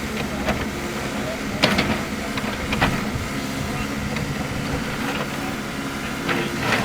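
Track hoe (excavator) diesel engine running steadily while it works crushed rock, with several sharp clacks of the bucket and rock, the loudest a little under two seconds in.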